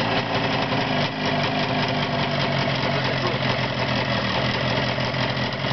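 Two-stroke single-cylinder motorcycle engine running steadily at low throttle on a test stand, with a hum from the gearbox in gear, which the owners take for the normal sound of a new gearbox that still has to run in.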